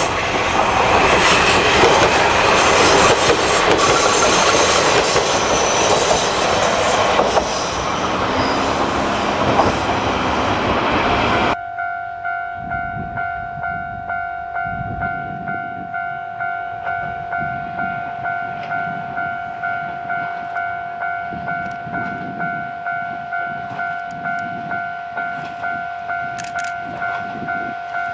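An Isumi Railway diesel railcar runs past close by with loud rail noise. About twelve seconds in, the sound cuts to a steady ringing tone that pulses about one and a half times a second, typical of a Japanese level-crossing alarm.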